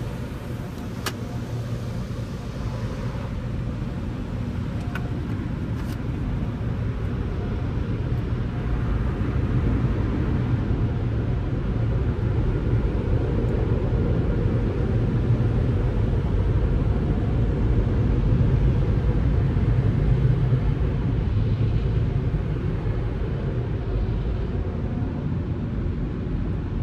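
Automatic tunnel car wash heard from inside the car's cabin. Washing water and machinery hiss and rumble against the car in the first few seconds, with a couple of sharp clicks. A steady low rumble then builds and carries on as the car rolls out of the wash.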